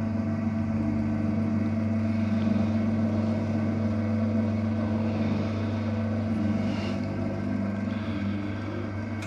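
Electric motor of a vertical piston sausage stuffer running with a steady hum while the piston travels back up the cylinder, cutting off at the very end.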